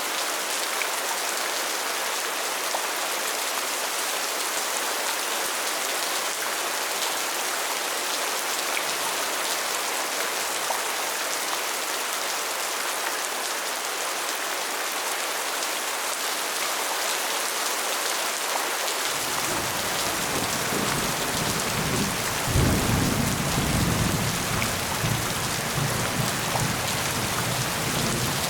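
Steady rain falling. A low rumble of thunder comes in about two-thirds of the way through and swells briefly before settling.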